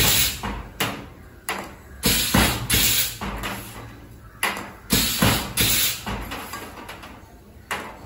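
Pneumatic aerosol can crimping machine working: about ten short, sharp hisses of compressed air venting as its air valves switch and the crimping head cycles, each starting abruptly and dying away within half a second or so, some with a metallic clack.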